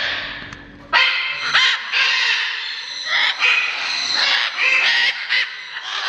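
Parrots squawking: harsh, loud calls one after another, overlapping, starting about a second in after a brief lull.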